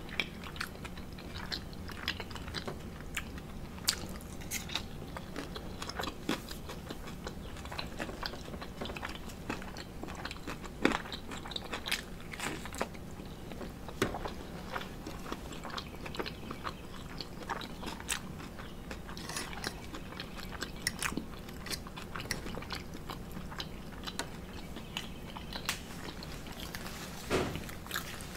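A person chewing and biting a breakfast of omelet and waffle, with many scattered short clicks.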